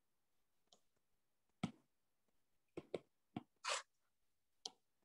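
About six short, soft taps on a tablet touchscreen, irregularly spaced, with near silence between them: keys being pressed on an on-screen graphing calculator.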